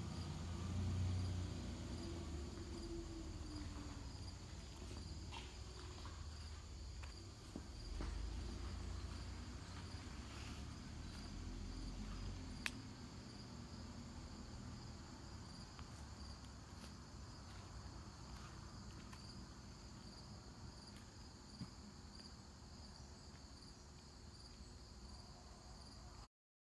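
Crickets chirring steadily, a high continuous trill with a regular pulse, over a low rumble in the first half and a few faint clicks.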